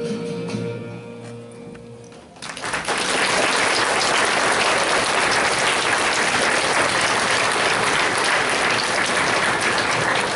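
The last held note of a children's choir song with accompaniment fades out, then an audience starts applauding about two and a half seconds in and keeps clapping steadily.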